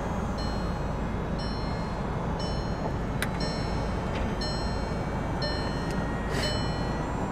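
Volkswagen Eos power hardtop opening, its roof mechanism running with a steady low noise and sharp clicks about three seconds and six and a half seconds in. The car's high warning chime repeats about once a second.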